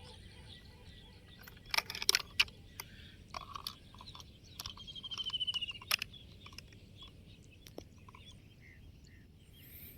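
Scattered sharp clicks and knocks of plastic toy vehicles being handled, over a low steady background, with a short trilling chirp about five seconds in.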